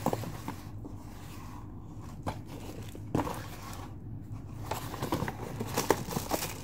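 Cardboard box being handled and opened by hand. A few taps and scrapes come first, then denser crinkling and scraping of the cardboard from a little past halfway.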